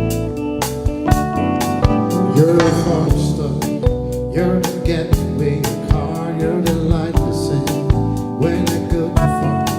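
Pop music with a drum kit, sustained keyboard and guitar chords, and a wavering lead melody line that enters about two seconds in.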